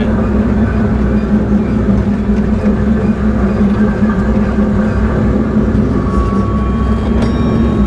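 Small amusement-park ride train running along its narrow-gauge track: a loud, steady mechanical drone with a strong hum and a low rumble. A thin, high steady tone joins it about six seconds in.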